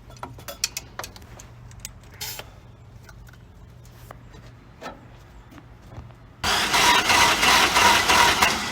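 Engine's starter cranking it over for about two seconds during a compression test, starting about six and a half seconds in and stopping near the end; the cylinder being tested reads dead. Before that, light clicks and knocks of the gauge and tools being handled.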